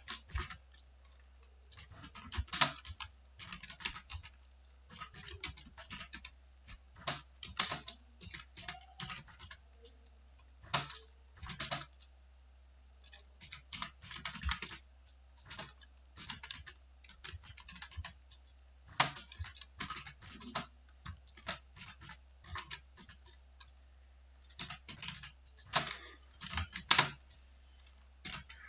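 Typing on a computer keyboard: irregular runs of key clicks with short pauses between words, over a steady low hum.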